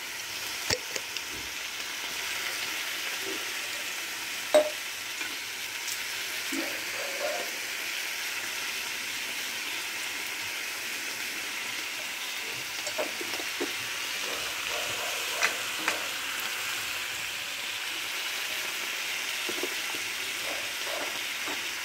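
Chicken pieces sautéing in oil in a frying pan with onion, ginger and garlic: a steady sizzle, with a few short sharp clicks here and there, the loudest about four and a half seconds in.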